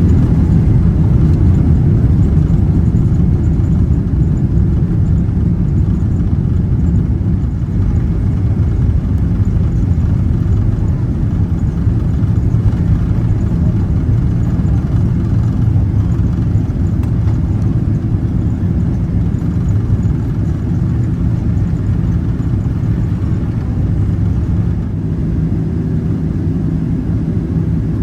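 Boeing 767-300ER jet engines at takeoff thrust, heard from inside the cabin: a loud, steady low rumble with a steady drone, loudest at first and easing slightly toward the end.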